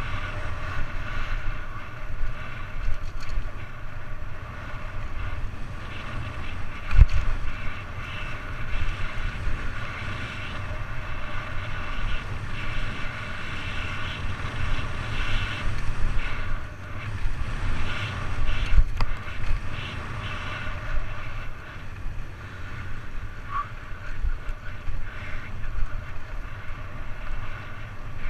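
Mountain bike running fast down a dirt downhill trail: wind buffeting the camera microphone over the steady rumble and rattle of the bike on the ground. There are a few sharp knocks from bumps, the loudest about seven seconds in and again around nineteen seconds.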